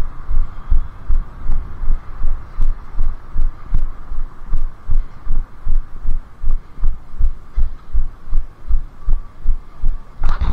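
Walking footsteps jolting a body-worn camera: low thumps about two and a half times a second, over a steady hum. A few sharp clicks come right at the end.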